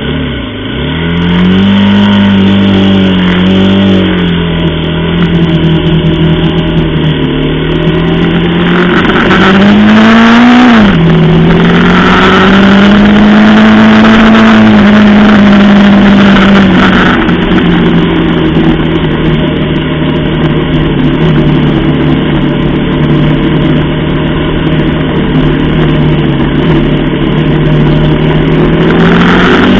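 Aprilia Tuono 125's single-cylinder four-stroke engine pulling away from a stop and accelerating, its note rising and falling through gear changes, with a sharp drop in pitch at an upshift about eleven seconds in. It then runs at a fairly steady cruising note and revs up again near the end, with wind noise rushing over the microphone.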